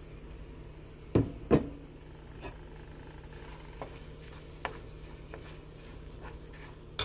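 Semolina being stirred into hot ghee and fried nuts in a nonstick frying pan with a metal slotted spoon, over a low steady sizzle. Two sharp knocks come about a second in, then lighter taps and scrapes of the spoon on the pan.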